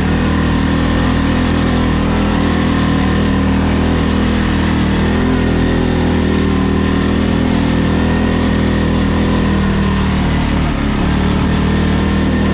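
ATV engine running at a steady, fairly even pitch, easing off briefly about ten seconds in before picking up again.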